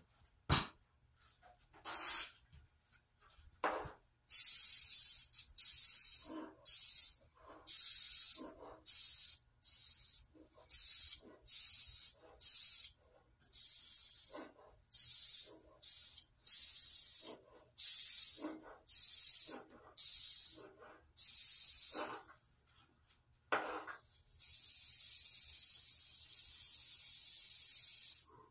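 Airbrush spraying paint in short hissing bursts, about one a second, then a steady spray lasting about four seconds near the end. A sharp click comes about half a second in.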